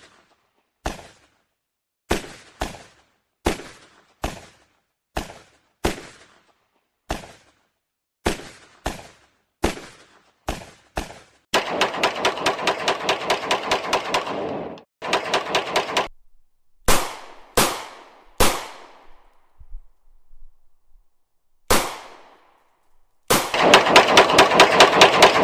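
Gunfire: single shots a little under a second apart, then rapid automatic bursts about halfway through, a few more single shots, and another long rapid burst near the end.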